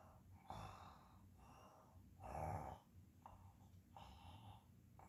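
Faint, soft breaths from a child acting out the toys sleeping: about five slow breaths roughly a second apart, the loudest just past halfway.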